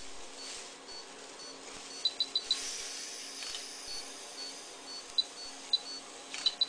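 Short high electronic beeps from medical monitoring equipment. There is a quick run of four about two seconds in, then single beeps and a pair near the end, with fainter regular pips and a low steady hum between them.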